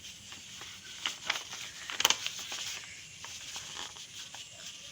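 A square sheet of paper being folded by hand, rustling and crinkling, with a few sharper crackles, the loudest about two seconds in.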